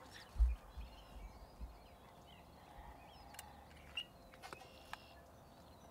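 Faint birdsong, scattered short chirps and calls, with a few low thumps in the first second and a half, the loudest about half a second in.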